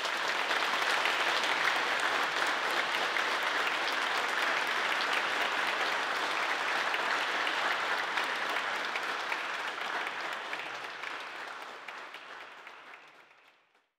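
Audience applauding, a steady dense clapping that fades out over the last few seconds.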